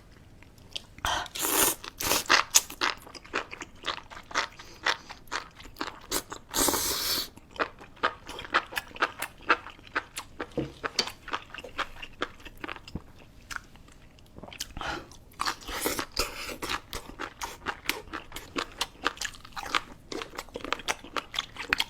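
Close-miked mukbang eating: steady chewing and crunching with many sharp wet mouth clicks, and louder bursts of eating noise about a second in, around seven seconds in and again near fifteen seconds.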